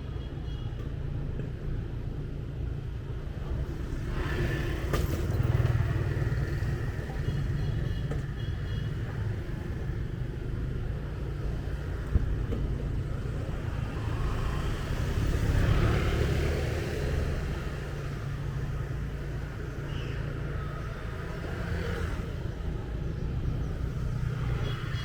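Motorbike riding through city streets: a steady low engine and road rumble that swells louder twice. A brief sharp tick comes about halfway through.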